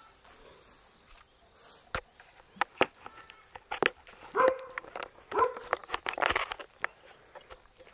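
A dog barks twice, about a second apart, among sharp knocks and rubbing from the camera being handled close to the microphone.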